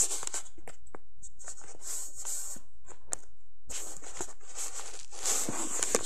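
Paper rustling and being handled, in several short spells with small clicks and taps between them.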